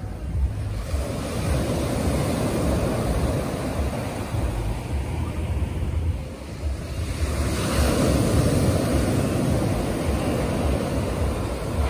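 Ocean surf: small waves breaking and washing up a sandy beach, swelling about a second in and again around seven seconds in, with wind rumbling on the microphone.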